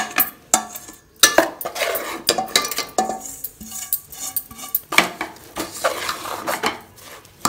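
Steel spoon scraping and knocking a semolina, coconut and dry-fruit mix out of a steel bowl into a metal pot of sugar syrup, then stirring it. There are repeated metallic clinks with brief ringing, and gritty scrapes against the steel.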